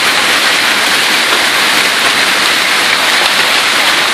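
Hailstorm: hail and heavy rain coming down hard, a loud, steady, dense hiss with no break.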